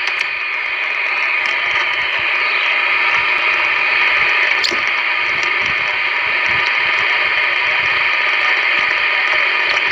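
Steady static hiss from a CB radio's speaker, with one sharp click about four and a half seconds in.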